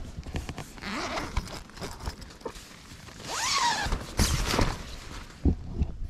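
Tent fabric rustling and handling, with the tent door zipper pulled open in a rasping zip about three seconds in.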